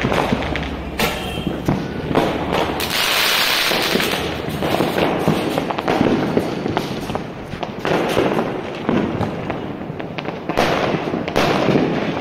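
Fireworks and firecrackers going off in quick succession: many sharp bangs and crackling pops, with a hissing rush lasting about a second, about three seconds in.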